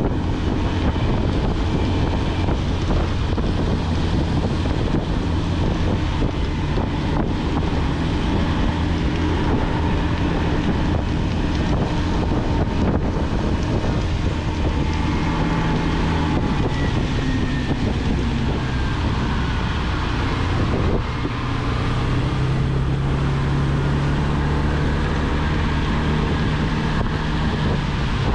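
Motolux MTX 125 motorcycle engine running at road speed under steady wind noise and wet-road hiss. The engine note climbs and strengthens about three-quarters of the way through.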